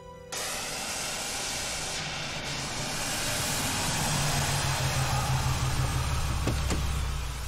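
Gas welding torch hissing steadily, cutting in abruptly right at the start. From about halfway a car's engine hum grows louder as the car pulls up.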